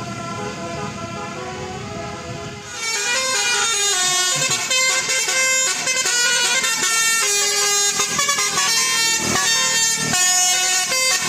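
Bus telolet horn: a multi-tone air horn playing a quick tune of short, stepped notes, coming in loud about a quarter of the way in and continuing.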